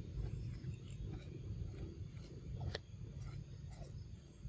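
A macaque handling a plastic drink bottle, making light scattered clicks and one sharper click about halfway through, over a steady low rumble.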